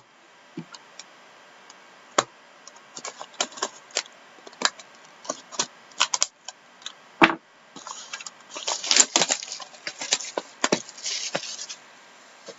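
Hockey trading cards and their packs being handled: scattered sharp clicks and snaps of cards and card stock, with a denser run of crackling and crinkling for a few seconds past the middle.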